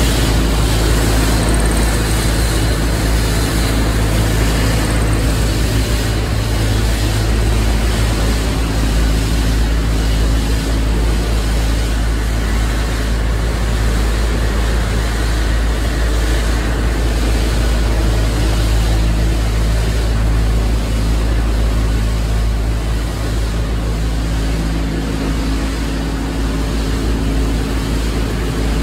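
Plastic film recycling and washing line running: a loud, steady machine drone with a constant low hum and steady low tones under a wash of noise.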